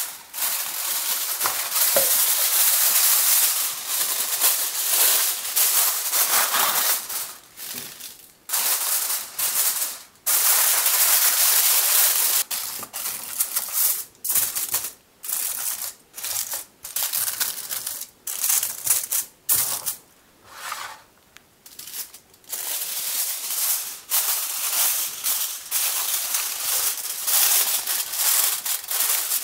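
Aluminium foil crinkling and crackling as it is unrolled, crumpled and pressed by hand into a metal baking tin, in bursts with short pauses between.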